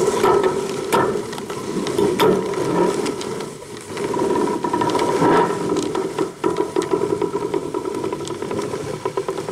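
A test rig twisting a large coiled steel expansion spring, giving a steady mechanical whirring with rapid fine clicking; it dips briefly about three and a half seconds in.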